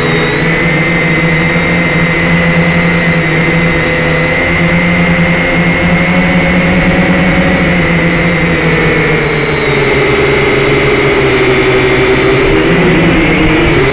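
Syma quadcopter's small electric motors and propellers whining steadily in flight, heard up close through its own onboard camera as it climbs. The pitch dips a little about two thirds of the way through and rises again near the end.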